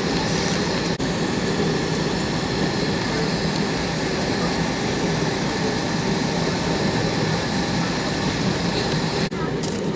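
Steady cabin noise inside an Airbus A320-232 while taxiing: its IAE V2500 engines at idle thrust and the air-conditioning hiss, a low hum with a few steady tones. There are brief dips in level about a second in and near the end.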